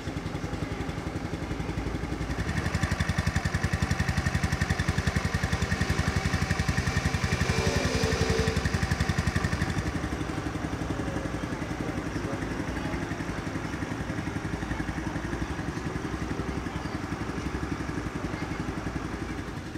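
Kymco Agility 50's 50cc four-stroke single-cylinder scooter engine running with a rapid, even pulse. It runs louder from about two seconds in until about ten seconds in, then settles to a steadier idle.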